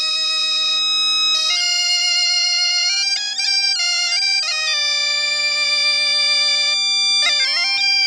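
A Breton bombarde and biniou kozh pair playing a mélodie (slow air) together over the biniou's steady drone. The melody moves in long held notes with a slight vibrato, broken by quick ornamented turns, with a busy flurry of grace notes near the end.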